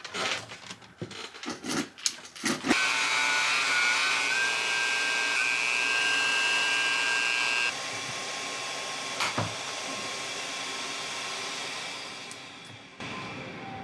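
Handling clatter and knocks, then about three seconds in a handheld power tool starts and runs with a steady motor whine, about five seconds later it drops to a lower, quieter level and fades out near the end.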